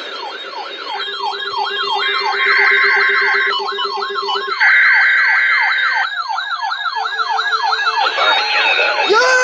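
Several electronic sirens sounding at once, their overlapping pitches sweeping quickly up and down about three times a second, with steady alarm tones switching on and off underneath. Near the end the sweeping gives way to a different tone.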